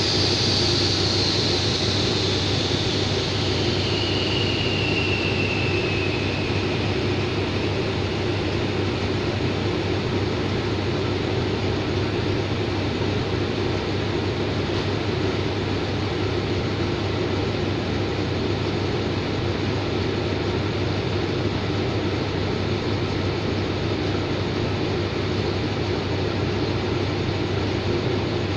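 Diesel locomotive No. 4514 and its express train standing at the platform, engines idling with a steady low hum. A hiss of air fades away over the first few seconds, with a faint falling whine about five seconds in.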